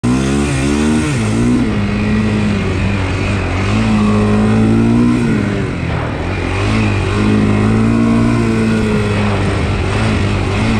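Honda 400X ATV's single-cylinder four-stroke engine under way on a trail, its pitch climbing in a few quick rises at the start, then holding fairly steady, easing off briefly about six seconds in and picking up again.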